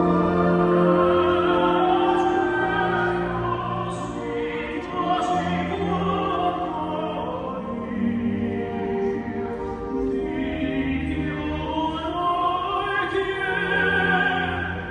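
Slow classical vocal music with orchestra, operatic in style, with long held sung notes.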